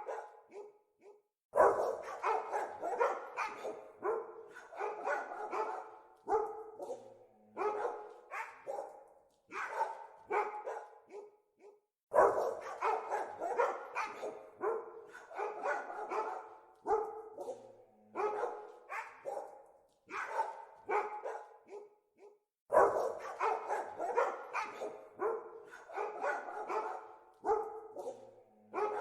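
Dogs barking in volleys of rapid, sharp barks. A loud volley breaks out about every ten seconds and trails off into scattered barks.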